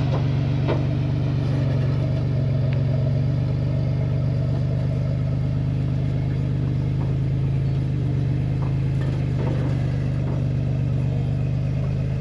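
A rock buggy's engine running steadily at low revs as it crawls slowly up a boulder, with a few faint knocks.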